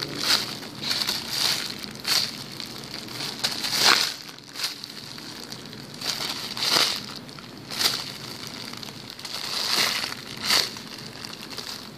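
Thin clear plastic bag crinkling in repeated, unevenly spaced bursts as a foam squishy toy is squeezed and pressed inside it.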